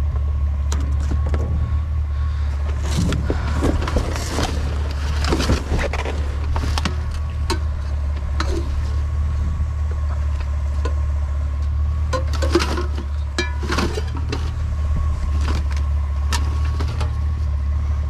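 A steady low mechanical hum, with scattered knocks, clatter and rustling of items being moved about in a dumpster, busiest about three to six seconds in and again around twelve to fourteen seconds.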